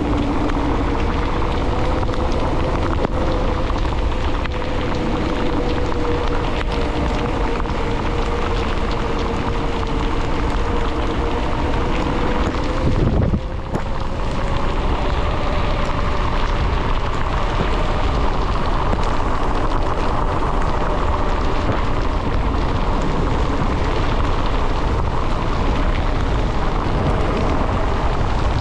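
Mountain bike's knobby off-road tyres humming on wet asphalt at speed, a steady tone that rises a little as the bike speeds up about halfway through. Over it, a steady rush of wind on the microphone and the hiss of tyres on the wet road.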